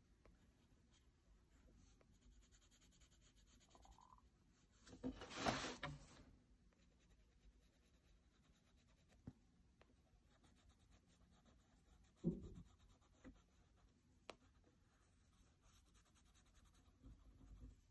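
Faint scratching of a colored pencil shading on sketchbook paper. About five seconds in there is a louder papery swish as the spiral sketchbook is turned on the table, and a soft thump comes a little after twelve seconds.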